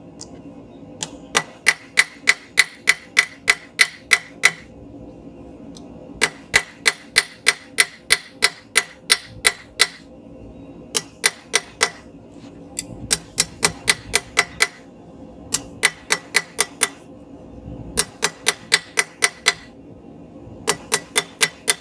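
Blacksmith's hand hammer striking a steel bar on an anvil, forging a flat chisel-point taper. The blows come quickly, about four to five a second, in runs of a few seconds broken by short pauses, and the anvil rings through each run.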